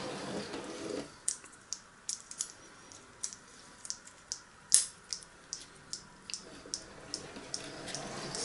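Irregular small sharp clicks and taps of fingers handling the tiny plastic and metal parts of a Train Tech model-railway sound unit, one click louder near the middle. A faint steady mechanical running noise fades out about a second in.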